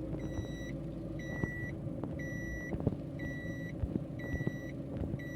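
A vehicle's electronic warning chime beeping steadily, about once a second, each beep about half a second long, over a low steady hum with a few faint clicks and knocks.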